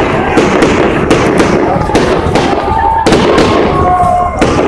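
Fireworks display going off in quick succession, a dense run of bangs and crackles. A few held whistling tones sound in the middle.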